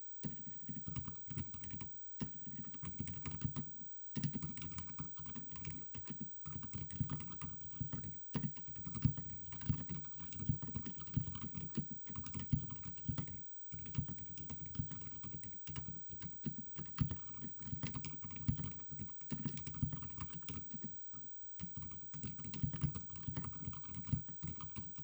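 Continuous typing on a mechanical keyboard with Outemu silent white linear switches under XDA-profile keycaps: soft, muffled, low-pitched key thuds in quick runs, with a few short pauses.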